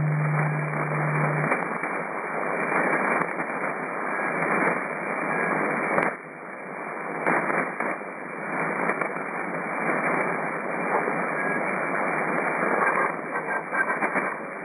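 Shortwave single-sideband receiver hiss on the 80-metre band, a narrow, telephone-like band of noise with crackling static crashes, while the tuned station is silent. A low steady tone sounds for the first second and a half, and the sharpest static crash comes about six seconds in.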